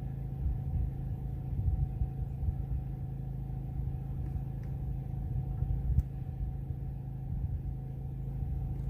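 A steady low engine-like hum with a rumble underneath, unchanging throughout.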